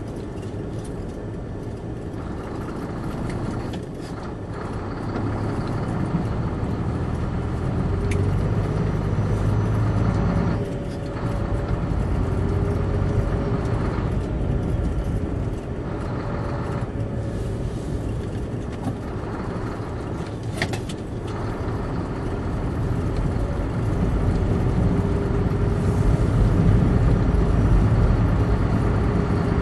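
Vehicle driving on a snow-packed dirt road, heard from inside the cab: a steady low engine drone with tyre and road noise, with a few brief knocks over bumps.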